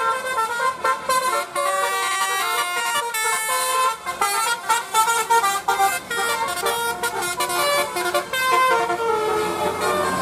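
Bus 'telolet' musical air horn playing a fast tune of short notes that step up and down in pitch.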